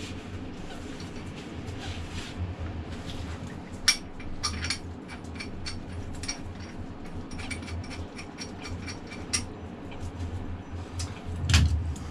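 Metal clinking and rattling as lifting straps and their hooks are handled against a hoist chain, with many short clicks and a louder knock about four seconds in and again near the end, over a low steady hum.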